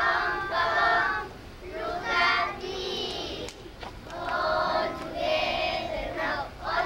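A group of children singing together in unison, in short held phrases.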